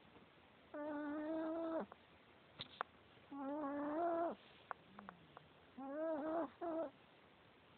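A sleeping Chihuahua snoring: three high-pitched snores of about a second each, spaced roughly two and a half seconds apart, the third breaking in two.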